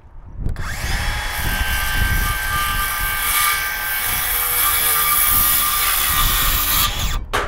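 DeWalt circular saw spinning up and cutting a plumb cut up through a wooden roof-truss rafter tail, the blade whining steadily in the wood, then cutting off suddenly near the end as the cut is finished.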